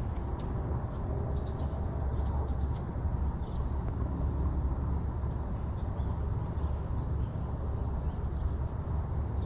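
Steady low outdoor rumble, even in level throughout, with a few faint small ticks over it.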